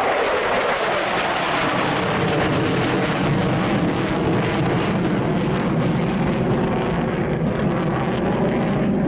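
Mitsubishi F-2 fighter jets flying past with a loud, steady jet-engine roar from their single F110 turbofans. The hissing top of the sound thins out over the second half as the jets draw away.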